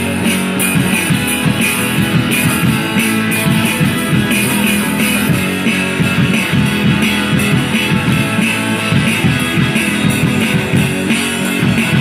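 Rock band playing live: electric guitars and bass through small combo amps over a drum kit keeping a steady beat.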